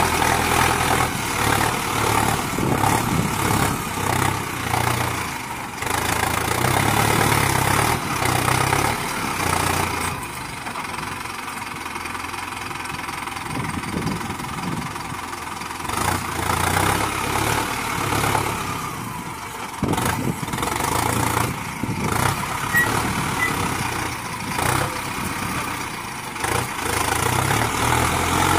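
Mahindra Arjun tractor's diesel engine running while its front-end loader works. The engine swells and eases back every few seconds as the loader lifts and dumps, with a quieter spell about a third of the way in.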